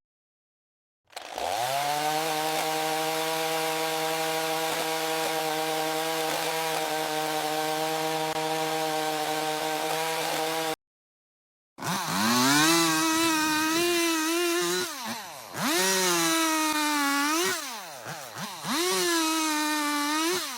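Two chainsaw sounds, each starting abruptly after a second of silence. The first quickly climbs to a high rev and holds it steadily for about nine seconds. The second revs up and down repeatedly with the throttle.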